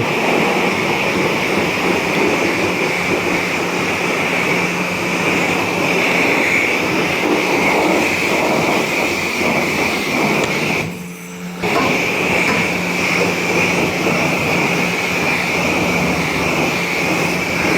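Self-serve car wash pressure wand spraying rinse water onto a motorcycle: a steady hiss over the machine's hum. The spray cuts out briefly about eleven seconds in, then resumes.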